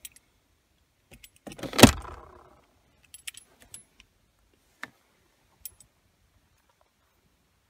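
Handling noises in a car's centre console and storage cubbies: one sharp clack with a short ring about two seconds in, followed by a few light clicks.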